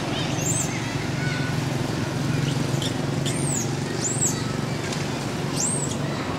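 Steady low outdoor rumble with high, thin chirps repeating every second or so, each one rising and then falling.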